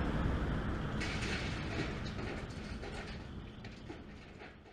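Heavy demolition excavator running, with rubble clattering and scraping, fading out steadily.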